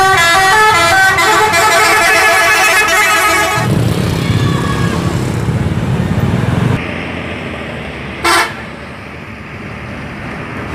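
A tour bus's multi-tone musical air horn (telolet horn) playing a quick stepping tune of several notes for the first few seconds. After it, the bus engine and road traffic run on, with a brief loud burst about eight seconds in.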